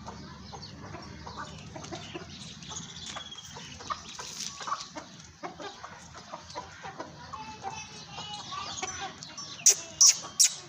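Chickens clucking in a busy run of short calls. Near the end, a series of loud, sharp knocks starts, about three a second.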